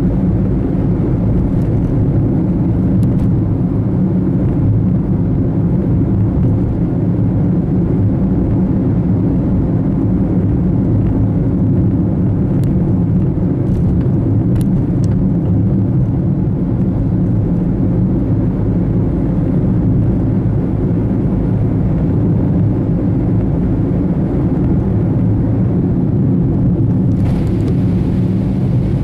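Steady low rumble of a car's engine and tyres on the road, running evenly with no change.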